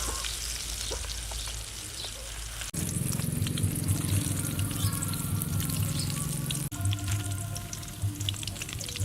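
Food frying in a hot pan, a steady sizzle with scattered crackles. From about three seconds in, background music with low sustained notes plays over it.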